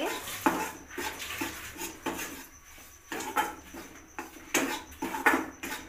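A long-handled steel spoon scraping and knocking against a steel kadhai while stirring dry roasted wheat flour. The strokes are short and irregular, about one or two a second, with a quieter pause near the middle.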